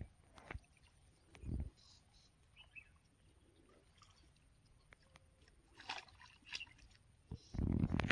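Water sloshing and small splashes around a person wading in weedy shallows while fishing, with one splash about a second and a half in and louder sloshing near the end. Faint bird chirps.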